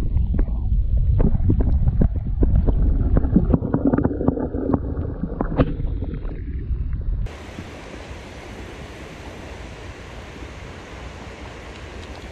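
River water heard from underwater: a loud, muffled rumble with many sharp clicks and knocks of moving water and handling as the fish is let go. About seven seconds in the sound lifts out of the water and gives way to the steady rush of river water flowing over a low dam.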